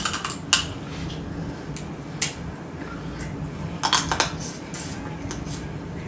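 Crab shells being cracked and snapped apart by hand: separate sharp cracks near the start, about half a second in and a little after two seconds, then a quick cluster around four seconds in.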